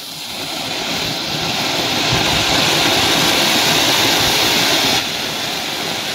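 Diwali flowerpot (anar) ground fountain firework spraying sparks: a loud rushing hiss with dense crackle. It builds over the first couple of seconds, then eases off a little about five seconds in.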